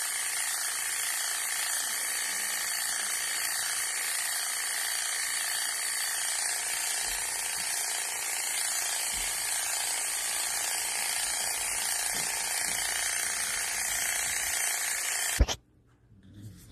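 Electric pet clippers running steadily while shaving a dog's fur, an even buzz that stops abruptly with a sharp click near the end.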